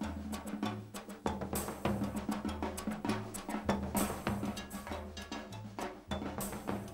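Brazilian percussion band playing live: drums struck with sticks in a dense, steady rhythm over repeating deep low notes, with a bright crash about every two and a half seconds.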